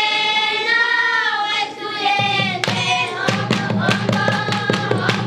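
Children's group singing a traditional Oshiwambo song: a long held sung note opens, then from about halfway a quick, steady hand clapping starts under further sung phrases.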